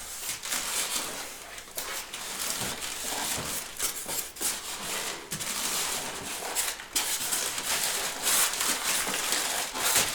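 Packaging rustling and scraping with irregular crackles and knocks, as a turntable is worked out of its box.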